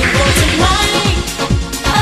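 Upbeat pop dance music with a steady, driving drum beat.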